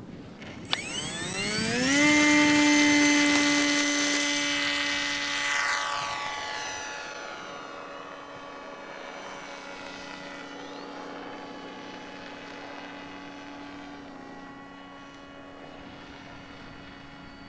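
Electric motor and propeller of a 3D-printed RC scale model of the Abrams P-1 Explorer, powered by a 3S battery, throttled up for take-off. A click, then a whine that rises quickly in pitch and settles to a steady note at full power. It fades over a few seconds as the plane climbs away, leaving a fainter steady hum.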